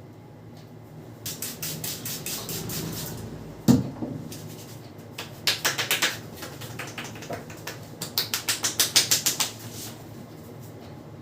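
Barber's hands slapping and tapping on the head in quick rhythmic runs, several strokes a second, in three bursts, with one louder single smack nearly four seconds in.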